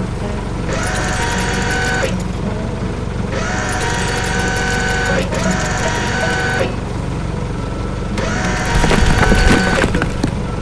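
Cartoon machine-engine sound effect, a steady rapid low chugging, under background music with held notes. About nine seconds in comes a short rough, crunching rumble with a few knocks.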